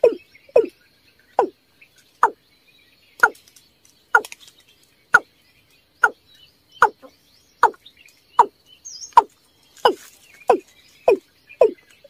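Watercock calling: a steady series of short notes, each sliding down in pitch, about one a second and quickening to nearly two a second near the end.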